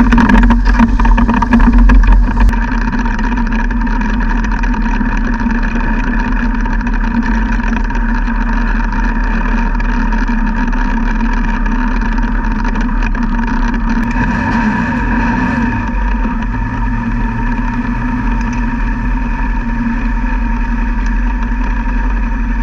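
Sprint car V8 engine running at a steady, unchanging speed, a little louder in the first two seconds, with a brief falling pitch about fifteen seconds in.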